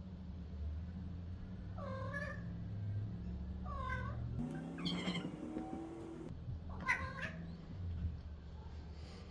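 Domestic cat meowing about four times, short calls that bend in pitch, over a low steady hum.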